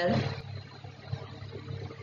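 Low, steady room noise with a faint hum and a few faint knocks.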